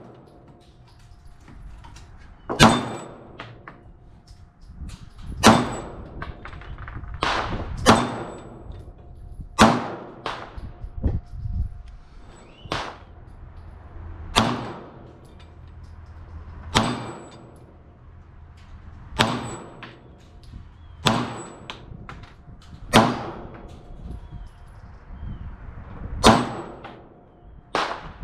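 Semi-automatic pistol firing single shots at a slow, steady pace, about one every two seconds, around eleven in all, each followed by a short echo.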